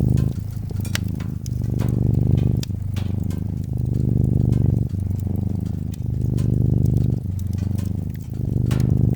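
Domestic cat purring close up, a low pulsing rumble that swells and dips with each in- and out-breath, about a second per phase. Scattered sharp crackles and pops from a wood fire run over it.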